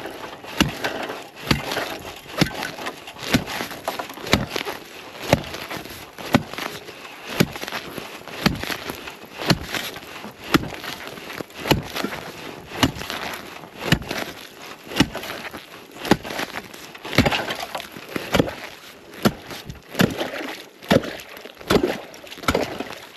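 Self-made ice-breaking tool with a steel-plate blade chopping through the surface ice of a frozen livestock water canister: repeated sharp blows, about one or two a second, with ice crunching and splintering between them.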